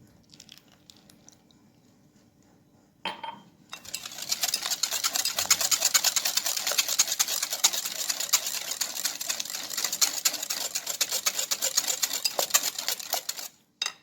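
Whisk beating cake batter in a bowl: a rapid, steady clicking and scraping that starts about four seconds in and stops just before the end, after a brief clatter of the bowl or utensil about three seconds in.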